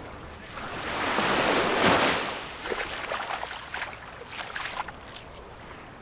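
A small Mediterranean wave breaking and washing up the pebbly shore, swelling to a loud hiss about a second in and dying away a second later. Scattered short clicks follow over the softer wash of the sea.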